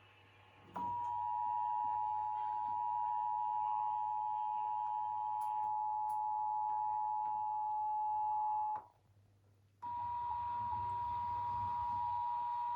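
Emergency Alert System two-tone attention signal: two steady tones sounding together as a continuous alarm for about eight seconds, cutting off, then starting again about a second later. It is the alert tone that leads into an emergency alert system test message.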